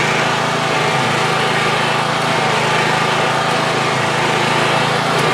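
Riding lawn mower's small engine running steadily, with no change in speed.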